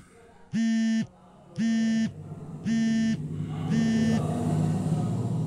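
Mobile phone ringing with an incoming call: four short buzzing tones about a second apart, the last ones fainter, stopping a little past four seconds in. A low hum swells underneath in the second half.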